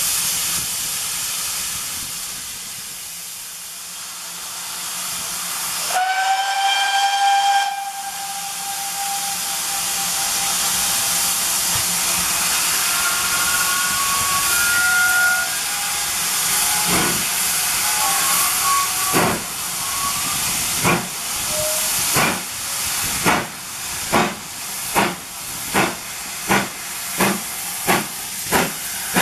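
GWR Hall class steam locomotive No. 5960 hissing steam, with a whistle of about two seconds some six seconds in. It then pulls away with its train, the exhaust beats coming slowly at first and quickening to nearly two a second as it gathers speed.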